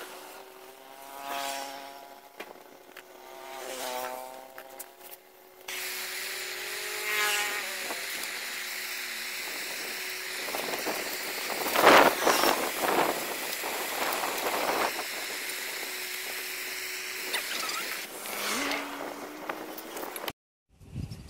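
Pliers scraping and clicking against a motorbike DC ignition coil held in a bench vise, as its casing is picked apart. A cluster of sharp clicks about halfway through is the loudest part. A faint steady tone and a few brief pitched sounds that waver in pitch sit in the background.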